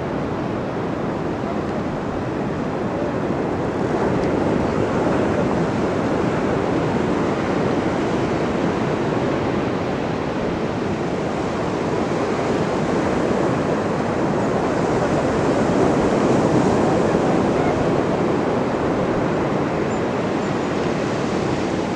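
Pacific Ocean surf breaking on a beach: a steady rushing wash that swells and eases slowly, louder about four seconds in and again past the middle.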